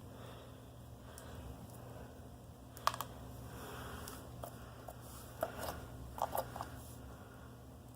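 Small clicks and taps of objects being handled close to the microphone: a sharp click about three seconds in and a short cluster of clicks from about five and a half to six and a half seconds, over a steady low hum.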